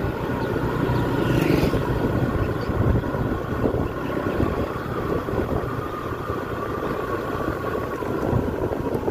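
A motor vehicle runs along on the move, with a faint steady engine whine and a rough, uneven rumble of wind on the microphone.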